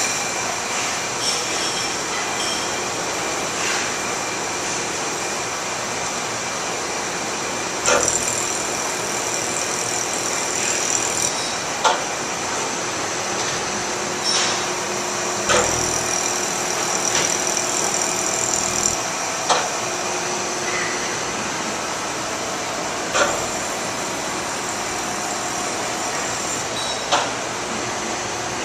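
Laser welding machine running with a steady hum and hiss, broken by short sharp clicks every few seconds. After some of the clicks, a high whine holds for a few seconds.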